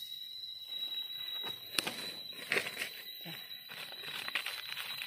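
Dry leaf litter rustling and crackling, with a few sharp scrapes as a serrated knife digs into the soil, over a steady high-pitched tone.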